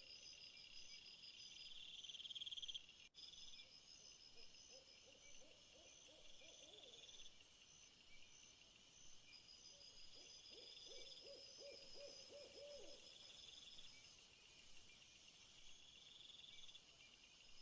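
Faint outdoor night ambience: several insects, crickets or katydids, trilling steadily in high pulsing rhythms, joined twice by runs of rapid low repeated calls from an animal.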